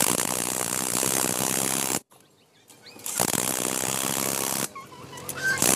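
Cordless impact wrench hammering on the rear wheel hub's axle nut in three bursts, the last starting near the end, driving the nut home over a newly fitted wheel bearing.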